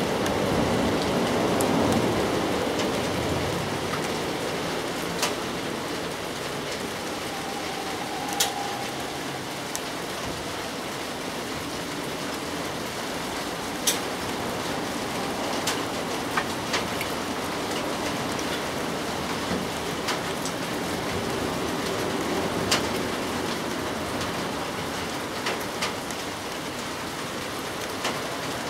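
Steady rain falling, with sharp drops landing every few seconds. A low rumble fades over the first few seconds.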